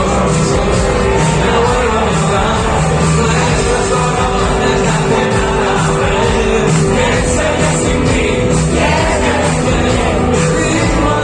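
Live rock band performing, with a singing voice over a steady beat.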